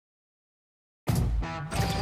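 Silence for about a second, then background music starts abruptly with a heavy low beat.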